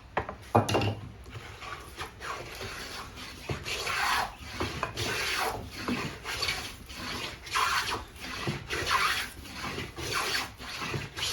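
Antique wooden jack plane taking repeated strokes along a board, each pass a rasping shave about a second long, roughly one every second and a quarter. A few sharp knocks come right at the start.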